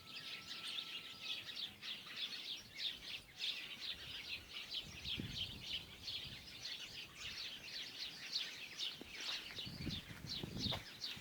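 Many small birds chirping in a dense, continuous chorus of quick, high chirps, with a few soft low thumps, mostly near the end.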